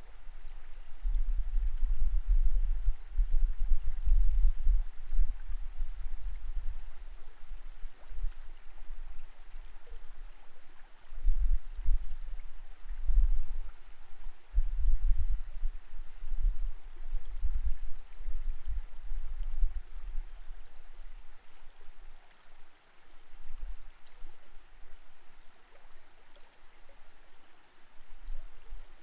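Creek water moving past an underwater camera: a muffled low rumble that swells and fades in uneven surges, over a faint steady hiss.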